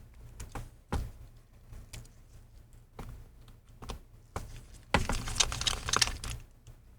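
Small clicks and taps of a 0.8 P2 pentalobe precision screwdriver working the tiny Wi-Fi antenna screws inside an open MacBook Pro. A sharp click comes about a second in, and a run of scratchy clicking comes about five seconds in.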